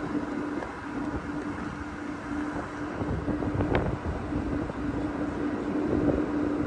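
Steady mechanical hum of a running 30-ton Addison rooftop air-conditioning unit, with an uneven low rumble underneath and a brief tick about halfway through.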